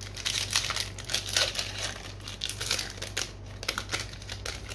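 Foil wrapper of a Magic: The Gathering set booster pack crinkling and tearing as it is pulled open by hand, a quick run of crackles that thins out near the end.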